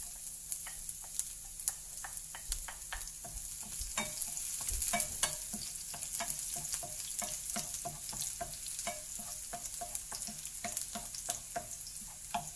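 Chopped garlic sizzling in hot oil in a non-stick frying pan, with steady hissing. A wooden spoon stirring it clicks against the pan about three times a second.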